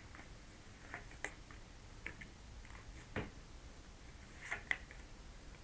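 Tarot cards being handled, shuffled and laid down: a few soft, scattered clicks and taps, the clearest about three seconds in and a small cluster near the end.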